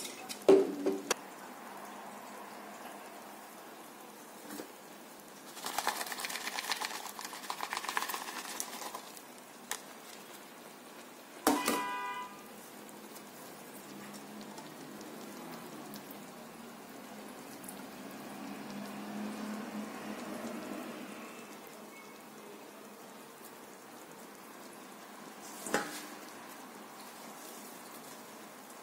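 Kitchen handling sounds around a steel pan of rice: a few sharp knocks at the start, a few seconds of crackly rustling about six seconds in, a ringing metallic clink near the middle, and another knock near the end.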